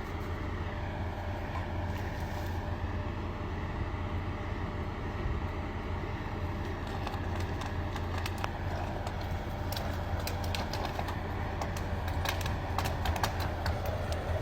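A crawler bulldozer's diesel engine runs steadily under load. From about halfway through, sharp knocks and clicks come more and more often.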